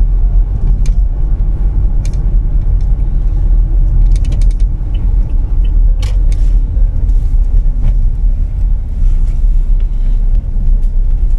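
Steady low road rumble of a car driving at speed, heard from inside the cabin, with a few brief clicks and rattles, including a quick run of clicks about four seconds in.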